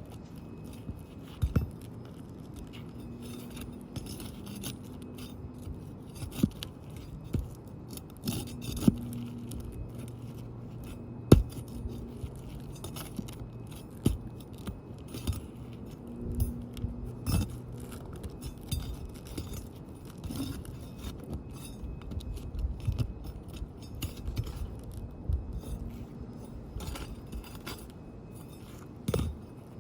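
Flat bar and hammer working under roof shingles to break their seal strips: scraping with scattered metallic clinks and knocks, the sharpest about eleven seconds in.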